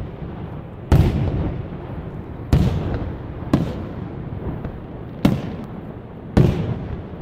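Aerial fireworks shells bursting: five sharp booms at uneven gaps of about one to one and a half seconds, each trailing off in a rumbling echo.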